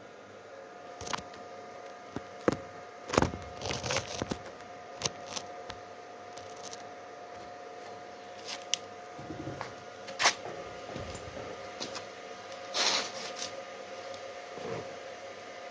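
Electric arc welding of a vertical-down bead: a steady electrical hum with irregular crackles and sharp pops, the loudest about three seconds in, about ten seconds in and again near thirteen seconds.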